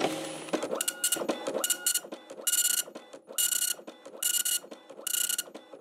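Dot-matrix printer printing, its print head sweeping across the paper in short, regular passes about one every 0.9 s. Each pass is a burst of pin-striking chatter carried over a steady motor whine.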